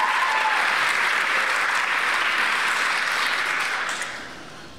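Audience applauding, a steady clapping that fades away near the end.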